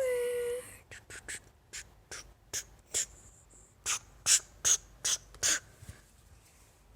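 German Shepherd puppy: a short whine of about half a second at the start, then a string of about fourteen quick, sharp sniffs or snorts over the next five seconds.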